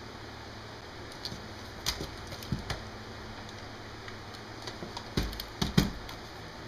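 Scattered clicks and knocks of a laptop being handled: lifted, its charger plug pushed into the back, and set back down on the desk. The loudest knocks come near the end.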